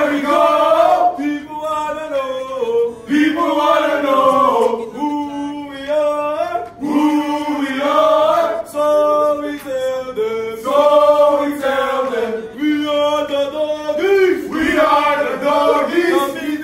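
A group of men chanting together in unison as a team cheer, in held, sung phrases of a second or two with short breaks between them.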